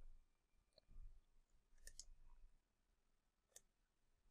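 Near silence with a few faint computer mouse clicks, about two seconds in and again later on.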